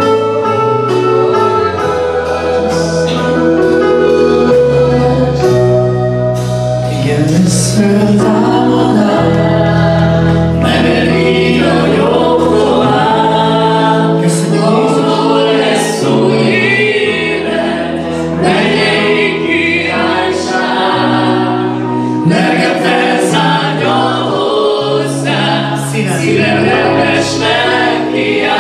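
Worship song sung in Hungarian by a group of voices over a band, with long sustained bass notes underneath.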